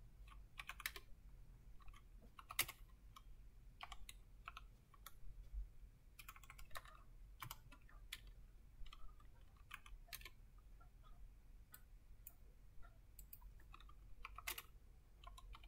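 Faint, irregular keystrokes on a computer keyboard, tapped a few at a time with pauses between, as shell commands are typed.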